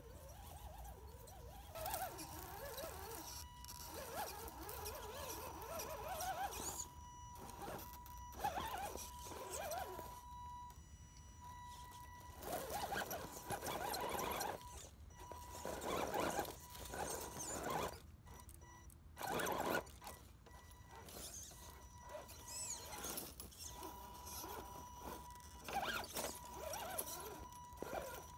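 Axial SCX10 radio-controlled crawler's brushed 540 electric motor and gearbox whining in bursts that rise and fall with the throttle, with a steady high whine underneath. Its tyres and chassis clatter and scrape over loose rocks.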